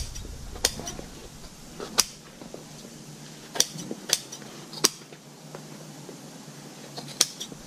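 Large upholstery shears snipping away the excess cover material folded around a sun visor's edge, about seven sharp snips at irregular intervals.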